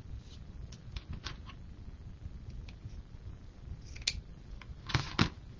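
Scissors cutting wired-edge ribbon into dovetail tails: a few light clicks, then two sharper snips close together about five seconds in.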